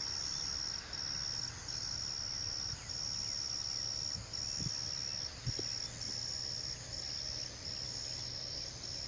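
Crickets trilling steadily in long stretches with short breaks, a thinner higher trill above them, and a faint low hum underneath.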